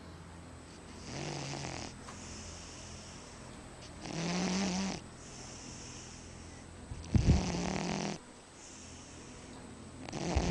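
Cat snoring: about four slow snores, each roughly a second long, coming about every three seconds.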